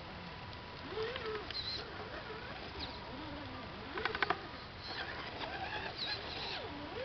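Electric motor of an Axial AX10 RC rock crawler whining, its pitch rising and falling with the throttle as it crawls over rock, with a quick rattle of clicks about four seconds in.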